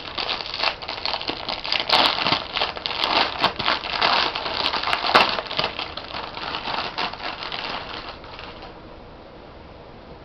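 Plastic packaging crinkling and crackling as it is handled and opened, stopping about eight and a half seconds in.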